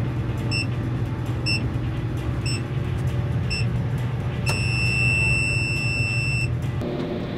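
Tanning bed's countdown signal: four short high beeps about a second apart, then one long beep lasting about two seconds, marking the end of the session. Under it runs the bed's steady low hum, which drops near the end as the machine shuts down.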